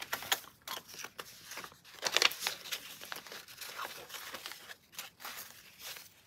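US paper banknotes rustling and flicking as they are pulled from a clear plastic binder envelope and handled, with crinkling of the plastic sleeve; a louder rustle comes about two seconds in.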